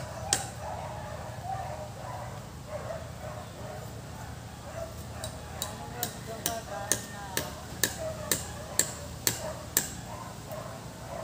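Chopping strikes of a blade into coconut-palm wood, one just after the start and then a run of about ten sharp blows, about two a second, from about five seconds in to near ten seconds.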